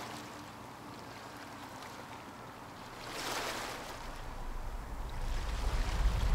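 Small waves lapping on a pebbly lakeshore, a steady wash of water with a brief swell about three seconds in. A low rumble builds underneath over the last couple of seconds.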